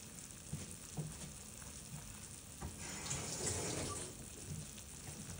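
Pot of water with vegetables and meat boiling hard, a steady bubbling that gets a little louder for about a second near the middle.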